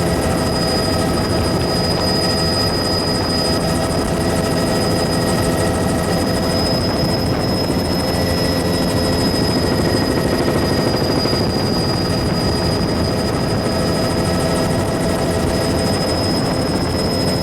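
Helicopter in flight: steady rotor and engine noise with a constant high whine over it.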